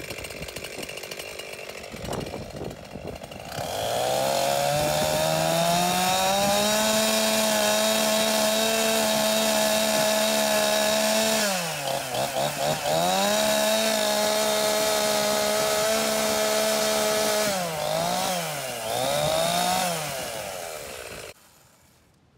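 Husqvarna 350's 50cc two-stroke chainsaw engine running on a freshly fitted chain. It idles briefly, then about four seconds in is revved to full throttle and held there so the bar oiler throws oil off the chain tip. The revs dip and recover a few times before the engine is shut off about a second before the end.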